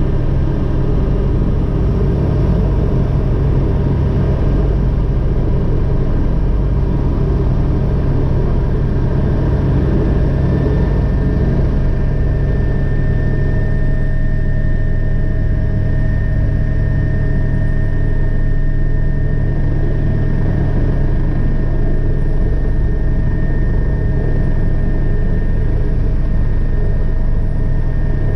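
Agusta AW119 helicopter's single turboshaft engine and main rotor running, heard from inside the cockpit: a steady, loud rumble. Power is coming up as the collective is raised, with engine speed climbing from about 76% to 91%, rotor speed reaching 100% and torque rising. A faint higher whine comes in about halfway through.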